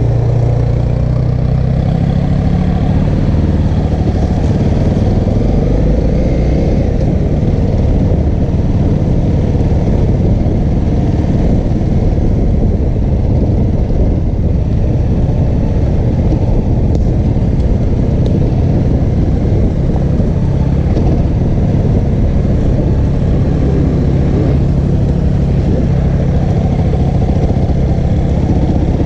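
Honda CRF250L's single-cylinder engine running steadily as the dirt bike rides slowly along a rough trail, with rumble and clatter from the bike over the ground.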